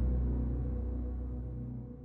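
Closing background music: a sustained low, ambient chord fading out.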